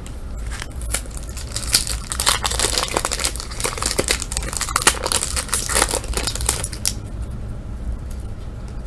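Trading-card pack wrapper being torn open and crinkled by hand: a dense run of crackles that stops about seven seconds in, leaving a low steady hum.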